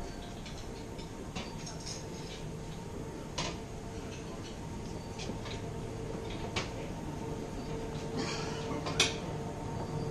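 Lounge room ambience: a steady low hum with faint background voices and scattered clinks of dishes and cutlery, one sharper clink about nine seconds in.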